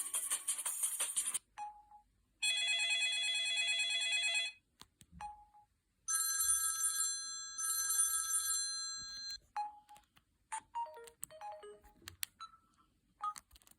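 Samsung GT-C5212i mobile phone's loudspeaker playing its ringtones one after another: the end of one melody, then a steady buzzy tone for about two seconds, then a ringing tone in two parts lasting about three seconds. Short beeps and clicks fall between the tones and near the end.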